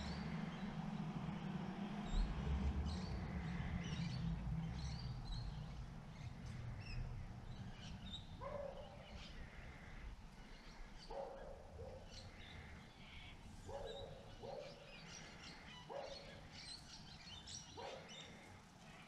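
Faint outdoor birdsong: many short high chirps, with a lower call repeating every couple of seconds from about eight seconds in. A low rumble sits under the first few seconds.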